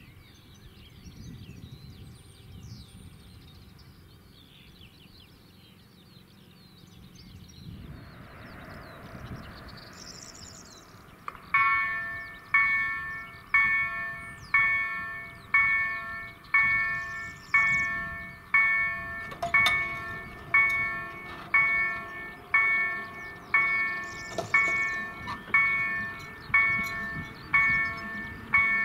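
Polish level-crossing warning bells (EDE-1 signals driven by an EDG-2005 electronic sound generator) start about eleven seconds in. Each stroke is a bell-like chord of several tones, struck about once a second and fading before the next. This is the crossing's warning for an approaching train. Birds chirp faintly before the bells begin.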